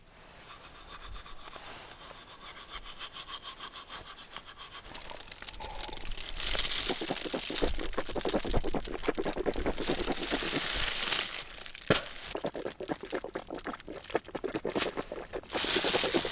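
Teeth being brushed with a toothbrush: quick back-and-forth scrubbing strokes, several a second. The strokes get louder about six seconds in and stop briefly near the end before starting again.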